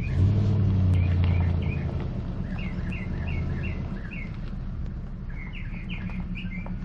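Small birds chirping in quick runs of short notes, twice. Under them, the low hum of a pickup truck's engine pulling away, loudest at first and then fading.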